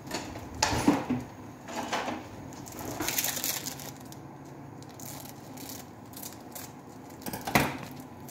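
Kitchen utensils being handled: four short bursts of clatter and rustling, three in the first few seconds and one near the end.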